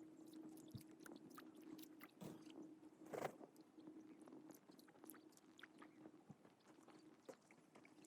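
Near silence, with faint scattered ticks and a faint steady hum.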